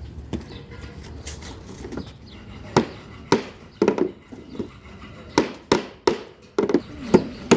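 Hand hammer striking wood in an irregular series of sharp blows, about a dozen, starting about three seconds in. Each blow has a short ringing tail, typical of carpentry hammering.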